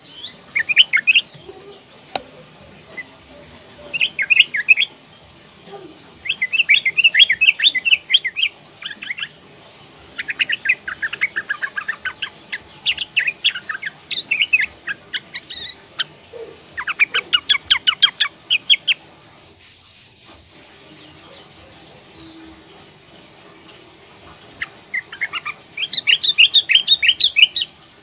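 Yellow-vented bulbul (trucukan), a young female, giving its call in bursts of rapid repeated chattering notes, most of them a second or two long. It falls silent for about six seconds in the second half, then gives one more burst near the end.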